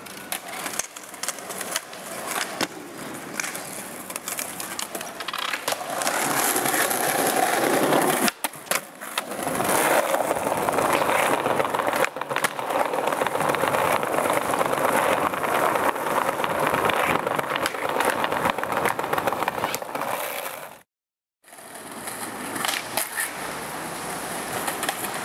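Skateboard wheels rolling loudly over concrete and paving slabs, broken by the sharp clacks of tail pops and board landings. The sound cuts out completely for a moment near the end, at a cut between clips.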